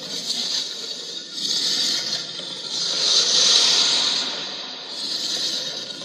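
Homemade werewolf transformation sound effect: a hissing, breathy noise that swells and fades about four times, loudest in the middle.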